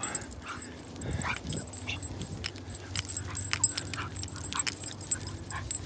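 Dogs excitedly greeting and moving about on their leashes, with collar tags and leash hardware jingling and scattered sharp clicks.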